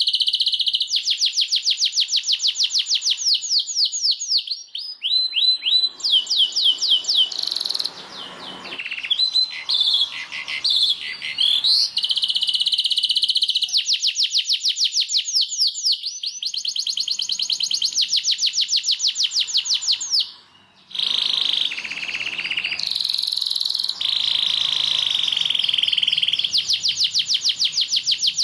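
Domestic canary singing a long song of fast repeated notes, trilling tours that switch phrase every few seconds, with a brief pause about two-thirds of the way through.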